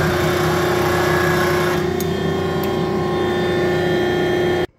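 Press brake running with a steady mechanical hum and a constant tone, with a short clack right at the start. The sound cuts off abruptly near the end.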